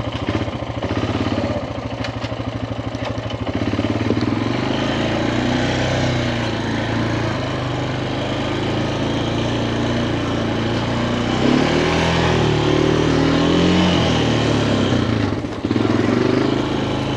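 A 1999 Honda Foreman 450 ATV's single-cylinder four-stroke engine runs steadily, then revs up and down a couple of times about two-thirds of the way through.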